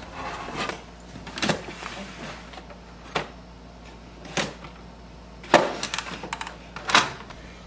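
Plastic clicks and knocks from an Epson WorkForce Pro WF-3820's paper cassette as its guides are slid, paper is laid in, and the tray is pushed back into the printer. The sharpest knocks come in the second half, as the cassette goes home.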